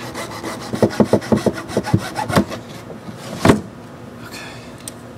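Hacksaw cutting off a protruding stub: a quick run of short back-and-forth strokes, about five a second, that stops about two and a half seconds in, then a single loud knock a second later.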